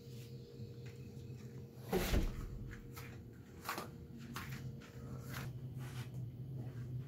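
A wooden door being opened and handled: a heavy thump about two seconds in and a few light knocks and clicks, over a steady low hum.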